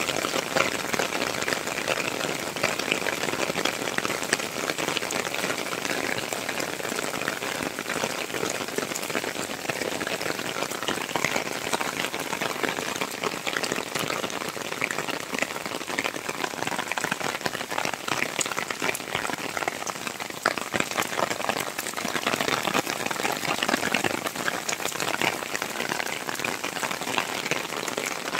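Rain falling steadily onto wet paving: an even hiss made of countless small drop impacts.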